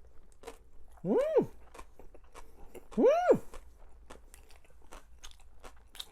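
Close-up mouth sounds of chewing, with small crunchy bites, as a mouthful of dumpling and pickled radish is eaten. Twice, about a second in and about three seconds in, a short hummed "mmm" of enjoyment sweeps up and back down in pitch.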